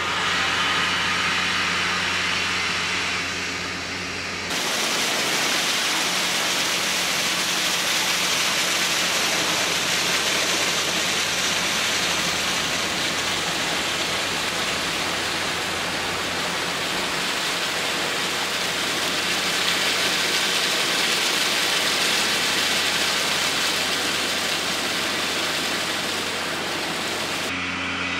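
A ship's engine hum with a steady low tone. A few seconds in, a loud, even rushing noise sets in over it and runs on until it cuts off near the end.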